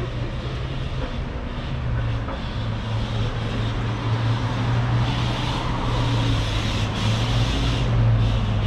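A motor vehicle's engine running close by: a steady low hum over a hiss of street noise, growing a little louder toward the end.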